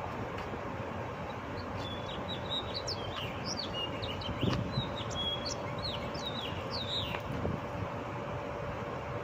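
Songbirds chirping and singing: a run of quick, high chirps from about a second and a half in until about seven seconds in, over a steady background hiss.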